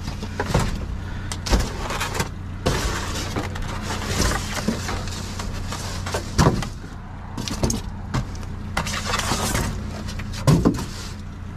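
Trash being rummaged in a dumpster: cardboard, styrofoam and plastic scraping, rustling and knocking as a gloved hand and a wooden-handled hook stick shift them, with the sharpest knocks about six and a half and ten and a half seconds in. Under it, a steady low hum.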